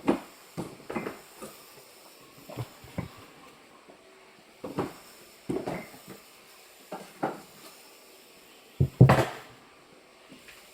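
Irregular wooden knocks and clunks, about a dozen, as pieces of cut firewood are handled and set down; the loudest is a double knock near the end. No saw is running.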